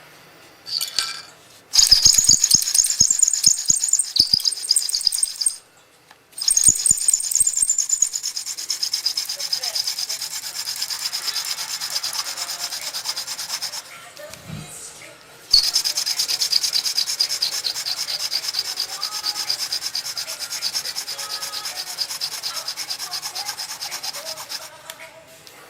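Friction-fire hand drill spun rapidly back and forth between the palms, its lime tip rubbing into a lime fireboard in a steady run of fast scraping strokes, drilling to build up an ember. The run breaks off briefly twice, about six and fourteen seconds in.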